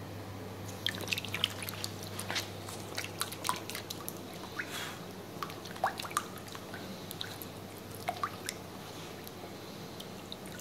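Water in a hydrographic dipping tank splashing and dripping in many small irregular splashes as a hand moves a freshly dipped part through the water and lifts it out, the stage where the printed film is applied and the part is cleared of the floating film.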